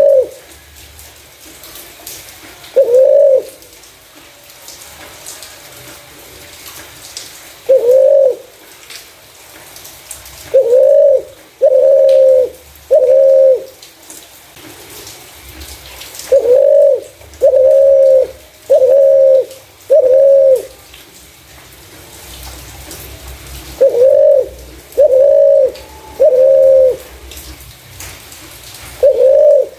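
Spotted dove cooing: clear, low coos of about half a second each, given singly or in runs of three or four, with pauses of a few seconds between runs.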